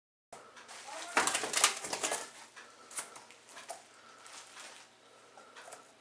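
A small bird trapped indoors fluttering and scrabbling against the window glass as it tries to get out: a dense burst of wing flaps and taps about a second in, then a few scattered taps.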